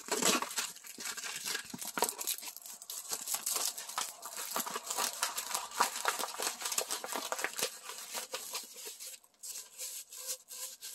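A rolled diamond painting canvas with its plastic cover film being rolled backward by hand to take out its curl, crinkling and crackling. It is dense for most of the time and turns lighter and sparser near the end.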